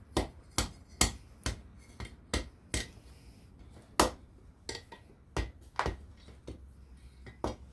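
Hand hammer striking hot steel on an anvil, a series of sharp metallic blows about two a second with a short pause midway, as the bar is forged into a bend.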